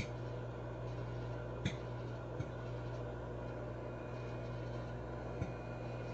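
Microwave oven running with a steady hum, with a few sharp ticks over it.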